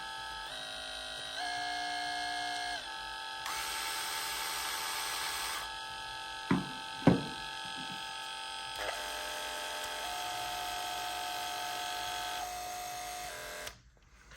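Joyzze Raptor three-speed cordless grooming clipper running with a steady electric hum whose pitch steps up and down several times as its speed is switched. Two sharp knocks come about six and seven seconds in, and the motor stops shortly before the end.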